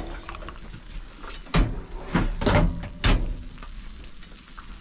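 Glass baking dish knocking against a metal oven rack as it is handled, three separate knocks spread over about a second and a half.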